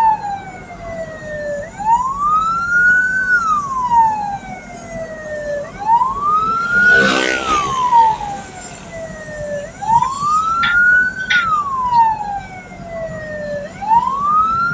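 Vehicle siren wailing in a slow cycle, each wail rising quickly and falling slowly, about every four seconds. A short burst of noise cuts in about halfway through.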